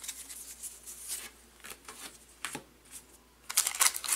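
Baseball cards being thumbed through by hand, soft slides and flicks of card stock, then about three and a half seconds in the louder crinkle of a plastic card pack wrapper being picked up and handled.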